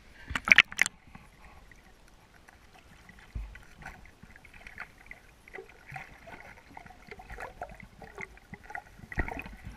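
River water splashing and gurgling around a camera dipped just under the surface. A few loud splashes come about half a second in, then muffled underwater sloshing with scattered clicks and knocks, and another burst of splashing near the end.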